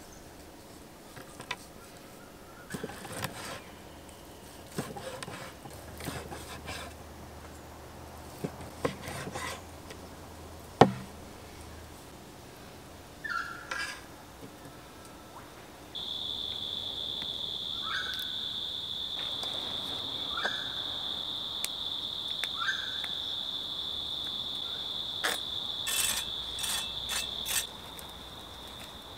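An insect starts a steady, high-pitched drone about halfway through and keeps it going, with a few short chirps around it. Before that there are scattered clicks and rustles of handling, with one sharp knock near the middle.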